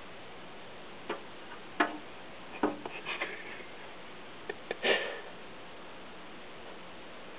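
A tabby cat pawing at window glass: a few light taps and clicks, then a louder scrape of claws on the pane about five seconds in.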